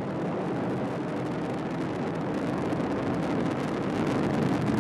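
Atlas V rocket with solid rocket boosters climbing under full thrust: a steady, crackling rumble that grows slightly louder toward the end.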